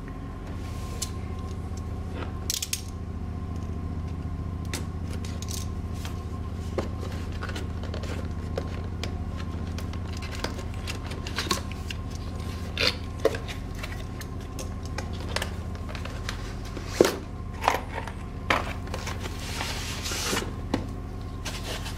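Cardboard CPU-cooler box being opened and unpacked by hand: scattered taps, clicks, scrapes and rustles of cardboard, with a steady low hum underneath.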